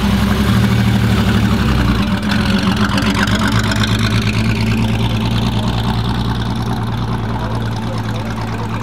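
Vintage Ferrari V12 coupé's engine running at low revs as the car moves off and drives slowly away, its sound easing a little toward the end.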